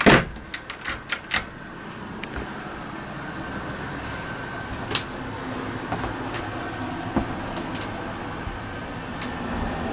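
A quick run of clicks and knocks from a wooden cabinet door being handled and shut, then a steady hum with a few scattered taps.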